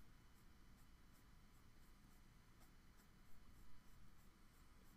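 Mechanical pencil scratching on paper in quick, repeated short hatching strokes, about three a second, faint.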